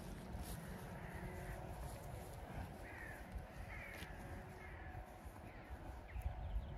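Birds cawing, a run of short calls about two a second in the middle, over a low rumble of wind on the microphone.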